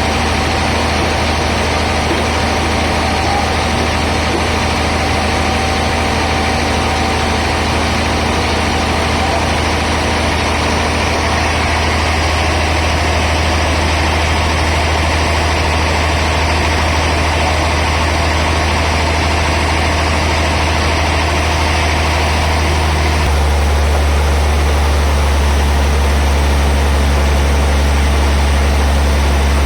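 Heavy sawmill machinery running steadily: a loud low engine-like hum with noise over it, the low hum shifting in pitch and getting a little louder about three-quarters of the way through.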